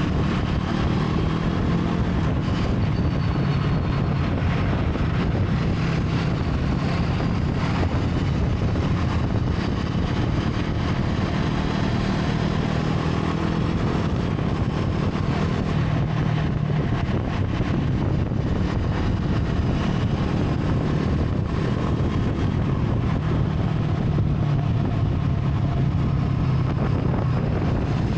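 Brixton Crossfire 500's parallel-twin engine running steadily at a fairly constant pitch, with a little rise and fall in engine speed.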